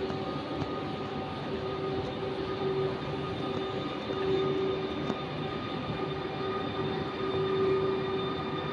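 Newag Griffin (PKP Intercity EU160) electric locomotive running, a steady electric whine of several held tones over rumbling rail noise.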